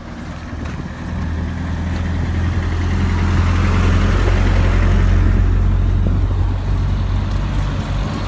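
A motor vehicle's engine running close by: a low, steady hum that swells over the first few seconds and then holds.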